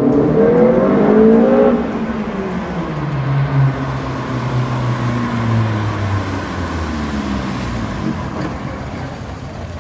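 Classic Datsun coupe's engine revving as the car pulls away at low speed, loudest and climbing in pitch for the first couple of seconds, then easing to a lower, steadier run as it rolls past.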